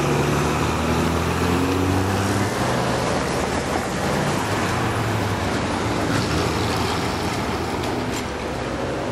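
City bus driving close past with its engine running and pulling up through the gears, over steady street traffic noise. A faint rising whine comes in near the end.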